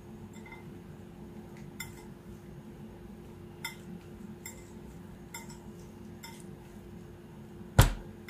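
Hands rolling soft layered dough into a tight log on a granite rolling board, with faint rubbing, scattered light clicks against the stone and one heavy thump near the end. A steady low hum runs underneath.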